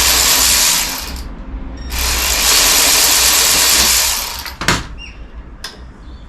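Power tool running in two bursts, about a second and then about two seconds, undoing fasteners during engine removal, followed by a couple of sharp metallic clicks.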